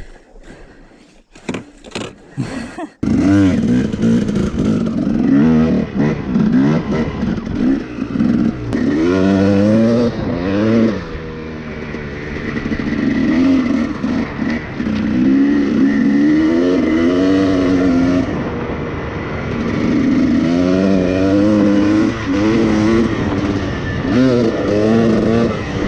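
Husqvarna TC 300 dirt bike engine, quieter for the first few seconds. About three seconds in it comes up loud and then revs up and down repeatedly.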